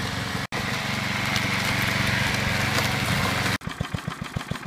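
Briggs & Stratton single-cylinder four-stroke lawn mower engine running steadily after a carburetor repair, cutting out briefly about half a second in; for the last second it runs with a slower, evenly pulsing beat.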